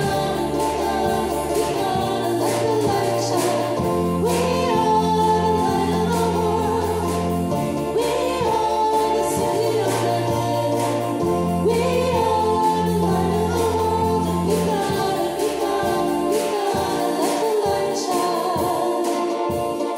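Contemporary worship song: the chorus sung over an instrumental backing, with held bass notes that change every few seconds.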